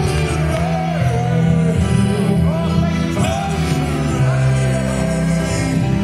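Live gospel praise music: a voice singing in gliding, drawn-out lines over sustained keyboard chords and a steady bass.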